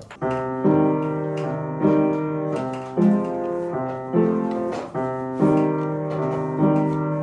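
Piano music: gentle chords, each struck and left to ring, about one every second and a quarter.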